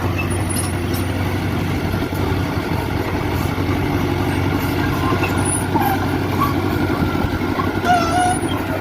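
Mitsubishi BD2G bulldozer's diesel engine running steadily with a constant low hum.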